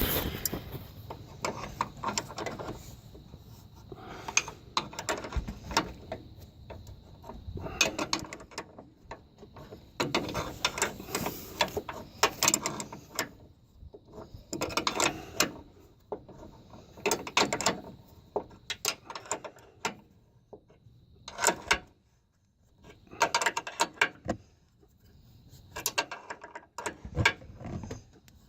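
Hand ratchet and socket tools clicking in repeated short bursts, with brief pauses between, as suspension nuts are worked tight.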